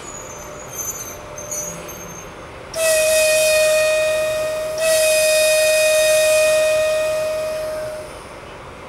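Horn of an EP1M electric locomotive sounding a long blast of about five seconds, a single high steady tone with overtones, which dips and comes back slightly higher about two seconds in, as if blown twice in quick succession.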